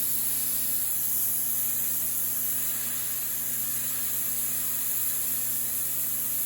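Pressure washer running and spraying a steady jet of water, a loud even hiss over the steady hum of its motor and pump.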